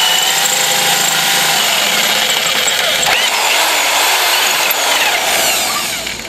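Corded electric drill boring into the steel frame of a walk-behind mower to enlarge bolt holes. It runs with a steady, loud grinding, and the bit squeals in a pitch that wavers up and down as it cuts the metal. The drill winds down near the end.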